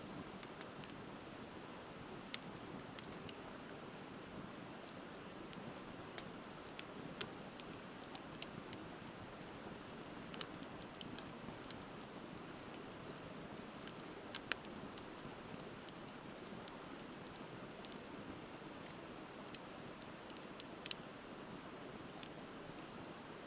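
Wood bonfire crackling, with irregular sharp snaps and pops, over the steady rush of a river.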